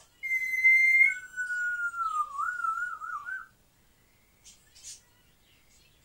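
African grey parrot whistling: a high steady note held for about a second, then a lower note that slides down and warbles up and down for about two seconds. Two faint clicks follow.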